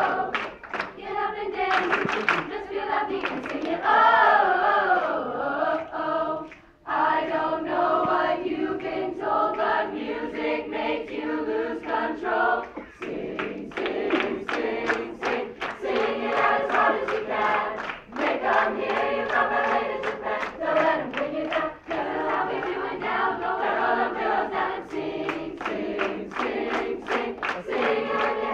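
Mixed youth choir singing in harmony, with steady rhythmic handclaps keeping the beat, broken by short pauses about seven and thirteen seconds in.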